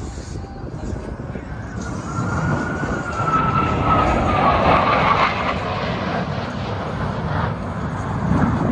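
A Blue Angels F/A-18 Super Hornet jet flying past. Its roar swells to a peak about four to five seconds in, and a thin whine falls slowly in pitch as it passes.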